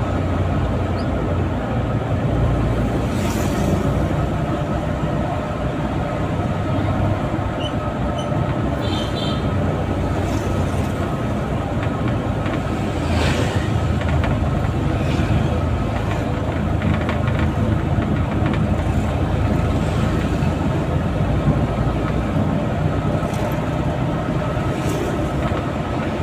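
Engine and road noise heard inside the cab of a small van driving in city traffic: a steady low drone, with a couple of brief knocks.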